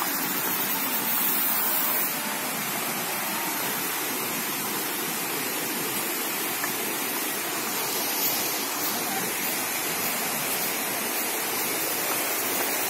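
Rushing water, a steady even roar of a stream or falls in the jungle gorge.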